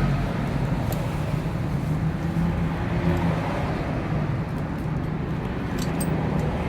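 Steady motor-vehicle engine and traffic noise, with a few small metallic clicks about a second in and again near the end.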